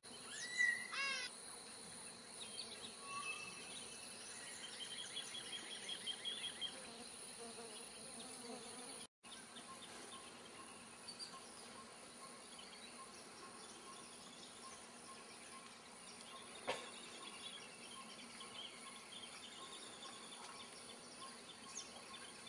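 Rainforest insects droning steadily at a high pitch, with bird calls: a few gliding whistles about a second in and a run of chirps a few seconds later. The sound cuts out for an instant about nine seconds in, and a single sharp knock comes near seventeen seconds.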